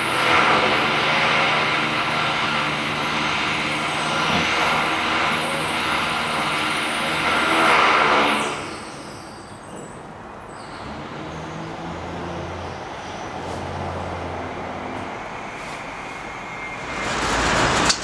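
Road traffic noise: a vehicle passes loudly with engine hum for the first eight seconds or so, then fades to quieter traffic, and the noise swells again as another vehicle approaches near the end.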